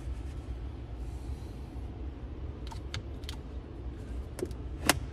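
A few short, sharp clicks and knocks of hard plastic and metal as a hand works the car battery and its cable loose in the trunk battery tray, the loudest one near the end, over a steady low rumble.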